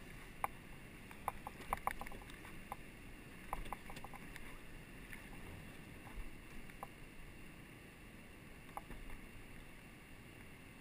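Paddle strokes from a raft on flat river water: a scattering of sharp little knocks and clicks, several close together in the first few seconds and single ones later, over a steady low rush of water.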